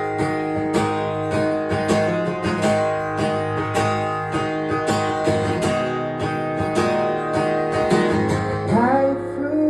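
Instrumental break in a song: acoustic guitar strummed in a steady rhythm, with a rising slide of pitch near the end as the next line comes in.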